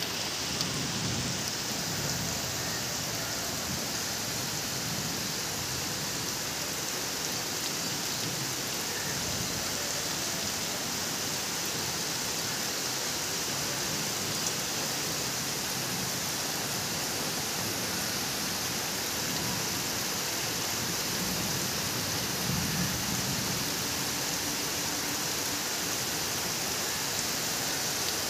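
Heavy rain pouring steadily onto clay-tiled roofs, trees and a flooded street: a constant, even hiss that neither builds nor eases.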